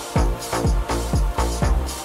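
Instrumental Euro house dance music: a steady electronic beat with a thumping kick drum about twice a second under bass and synth, no vocals.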